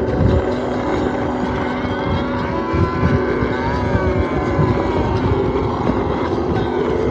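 Motorcycle engine running while riding, its pitch rising and then settling back around the middle, with wind buffeting the microphone underneath.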